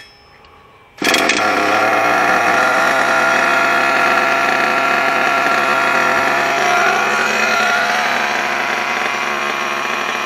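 Nitro glow engine of a Hot Bodies Lightning GT RC car starting about a second in and then idling steadily at tick over, with no throttle applied.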